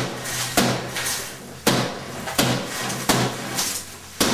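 A man strikes an interior wall again and again with a hand-held tool, each blow a sharp knock as the wall surface breaks open. About five blows come at a steady pace, roughly one every 0.7 seconds.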